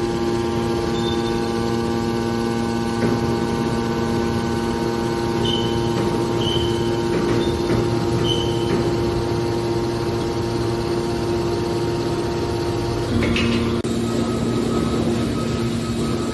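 Hydraulic car body baler running with a steady, multi-tone hum from its power unit, a few short high squeaks midway through. About 13 seconds in a knock comes and the hum shifts to a different tone, as when the press changes stroke.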